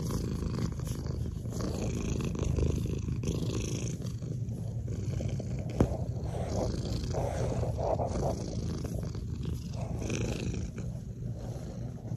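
Domestic cat purring steadily right at the microphone while being petted, with fur rustling against the phone and one sharp click about halfway through.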